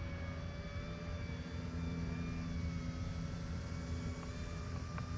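Volantex P-51D Mustang RC plane in flight: the whine of its small electric motor and propeller, a thin steady tone that drifts slowly in pitch, over a low steady hum.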